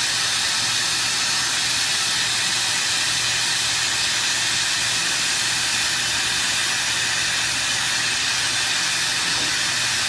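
Turbo-style brazing torch flame hissing steadily as it is held on a copper-to-steel joint. The joint is glowing red but has not yet reached the melting point of the nickel-silver brazing rod.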